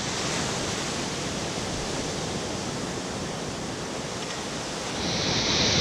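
Sea surf breaking and washing up a beach: a steady rushing wash of waves that swells louder about five seconds in.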